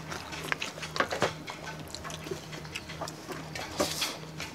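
Mouth sounds of eating rice and pork by hand: a scatter of short, wet chewing clicks and lip smacks, over a faint low hum that pulses on and off.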